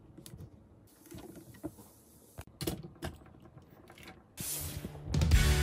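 Hard plastic parts of a combining toy robot clicking and snapping as they are pressed into place by hand: a scattering of small, sharp clicks. Background music comes in near the end and is the loudest sound there.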